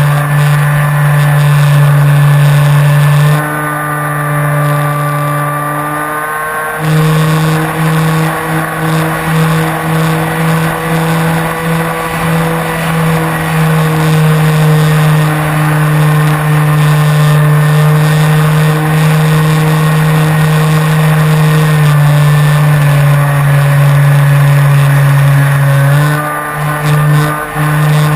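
Electric motor and propeller of a Flyzone Switch RC plane running at a steady pitch, heard from a camera mounted on the plane. The throttle eases back for about three seconds, starting about three and a half seconds in, then opens up again, and near the end the pitch wavers up and down.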